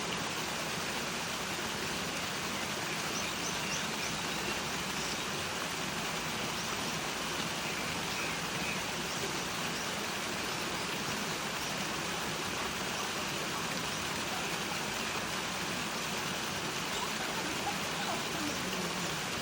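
Rushing water of a mountain stream, a steady, even hiss with no break, with faint short bird chirps here and there.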